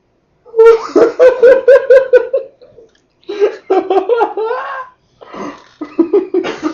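Hearty laughter in quick 'ha-ha' pulses, several a second, in three fits with short pauses between.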